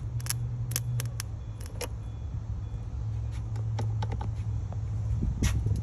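A steady low hum with a handful of short, sharp clicks and knocks scattered through it; the loudest comes near the end.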